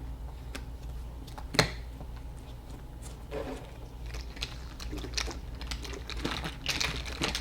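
Light clicks, taps and rustling of objects being handled, with one sharper knock about one and a half seconds in.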